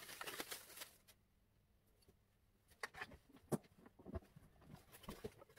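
Quiet handling noises: a brief rustle in the first second, then a scattered run of light clicks and knocks as a power cord is unwound and fed behind a countertop appliance.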